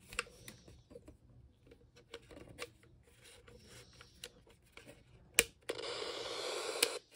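Scattered button clicks and handling taps on a dbSoars emergency weather radio. Near the end, a little over a second of steady static hiss from the radio's speaker cuts in and out abruptly.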